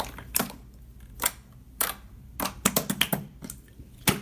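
Clear slime squeezed and pressed by hand, its trapped air bubbles giving irregular sharp pops and clicks, about a dozen of them, the loudest near the end.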